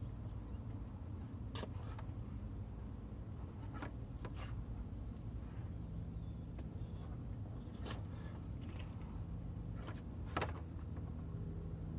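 Car engine idling with a steady low rumble, with a few short sharp clicks now and then.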